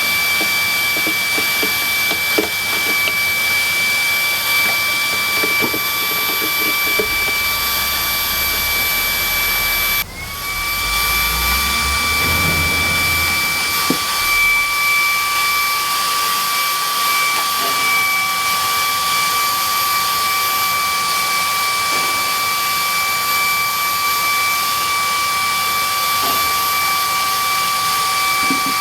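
Small high-speed electric motor running with a steady high whine. About ten seconds in it dips for a moment and spins back up, with a low rumble for a few seconds after.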